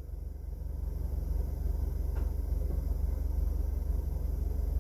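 Steady low rumble and hiss inside a Honda BR-V cabin, the engine idling with the air conditioning running. There is a faint click about two seconds in.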